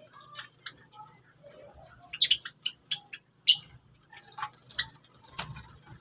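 Java sparrows bathing in a shallow bowl of water: an irregular run of short splashes and patters from wings beating the water, with brief high chirps among them. The sharpest sound comes about three and a half seconds in.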